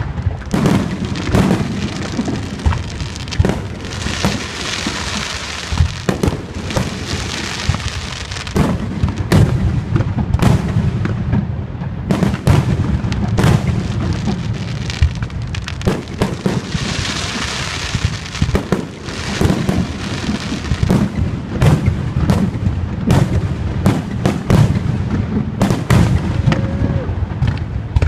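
Aerial fireworks display: a dense run of booming shell bursts, with two spells of crackling, about four seconds in and again around seventeen seconds.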